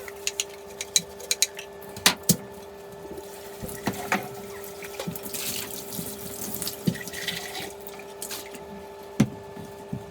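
Small hard parts clicking and knocking during handling, with short spells of running water, over a steady hum.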